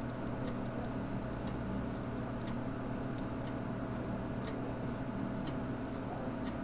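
Donmet 132A micro gas welding torch flame hissing steadily as it heats and welds a steel pipe joint, with a faint sharp tick about once a second.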